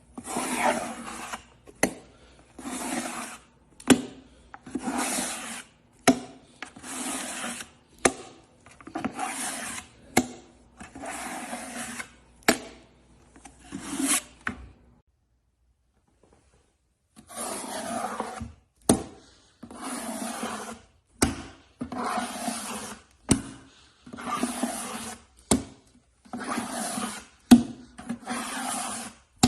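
Repeated rasping, scraping strokes, one about every two seconds, each stroke separated by a sharp click. They pause for about two seconds midway, then resume.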